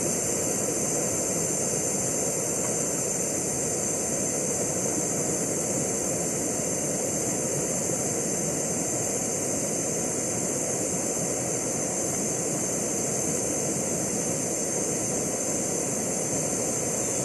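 Jetboil canister gas stove burner lit at full flame, a steady even hiss as it heats cold water to a boil.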